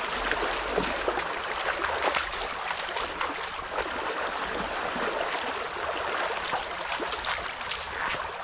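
Shallow stream rushing over stones, with feet splashing and sloshing through the water as several people wade across.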